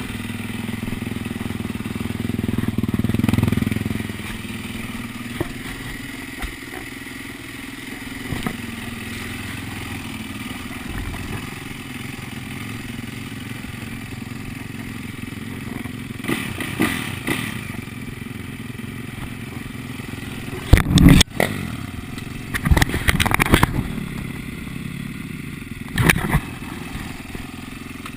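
2010 Yamaha YZ450F four-stroke single-cylinder dirt bike engine idling, rising briefly in a short rev a few seconds in. Several loud knocks and thumps come through later on, the loudest about two-thirds of the way through.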